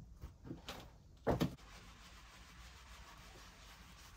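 A click, a few light knocks, and a louder double knock about a second and a half in: handling noise against the wooden cabin door and fittings during cleaning.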